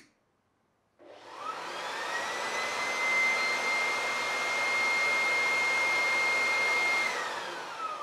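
Cordless electric leaf blower spinning up about a second in with a rising whine, running steadily at high speed, then winding down near the end.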